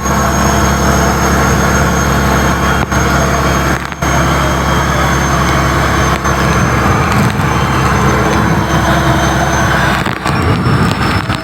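Fishing boat's engine running steadily, a constant low hum under a dense rushing noise. The steady low tone breaks up near the end.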